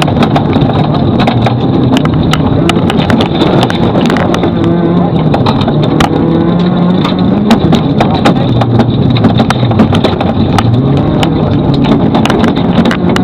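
Rally vehicle's engine running hard on a gravel stage, its pitch rising and falling repeatedly through revs and gear changes, with many sharp clicks and rattles over it.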